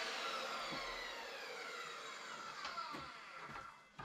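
Makita circular saw with a 190 mm Freud multi-material blade spinning down after cutting mild steel: a falling whine that fades out over about four seconds, the motor and blade coasting with the trigger released. A few light knocks come near the end.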